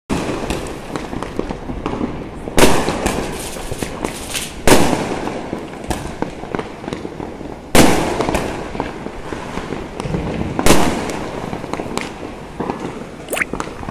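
Diwali fireworks going off: a steady patter of small crackling pops, with four much louder bangs spread a few seconds apart.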